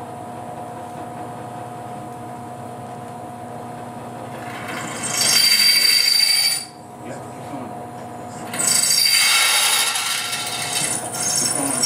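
Bench drill press motor running steadily while the bit enlarges a pre-drilled hole in a forged iron bar. Twice the bit bites and cuts with a loud, high screech, first about five seconds in for a second and a half, then again about three seconds later for nearly three seconds.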